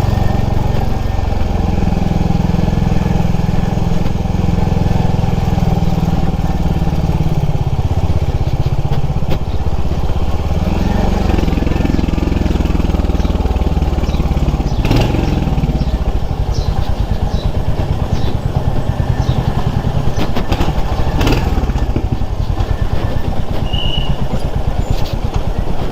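Motorcycle engine running on the move, its pitch falling and rising through the middle. In the last third it settles into low revs with an even pulsing beat, with a couple of sharp clicks.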